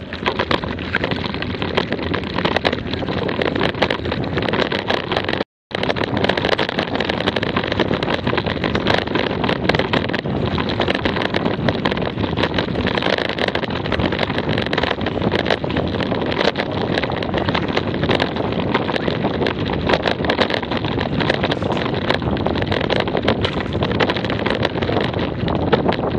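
Off-road bicycle rolling downhill on a dirt woodland trail: tyre noise with the bike rattling over bumps and wind buffeting the camera microphone. The sound cuts out for an instant about five seconds in.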